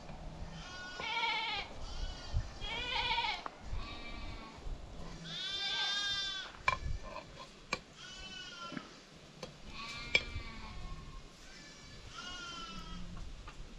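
Herd livestock bleating repeatedly, about eight quavering calls with one long, loud bleat in the middle. A few sharp knocks sound between them.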